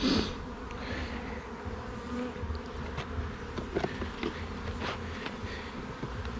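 Honey bees buzzing around an opened hive, a steady hum. There is a short, louder scrape or bump at the very start, and a few light clicks later on.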